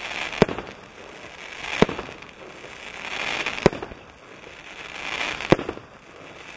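64-shot, 30 mm angled firework cake (Klásek CF643Z) firing: four sharp reports about two seconds apart, with a hiss of burning stars swelling between them.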